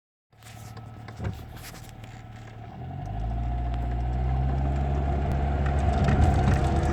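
Tofaş Doğan car driving in third gear, its engine pulling harder and growing louder from about three seconds in, with the note creeping up as it accelerates. A single sharp knock comes about a second in.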